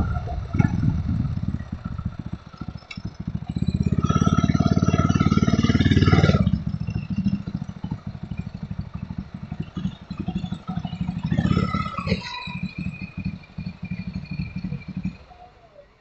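Custom chopper motorcycle engine running at a low, pulsing idle. It is revved up about four seconds in and blipped again briefly near the middle, then shut off near the end.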